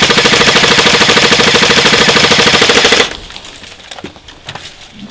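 Airsoft electric gun firing one long full-auto burst close by, a rapid, even rattle that stops abruptly about three seconds in; a few faint clicks and knocks follow.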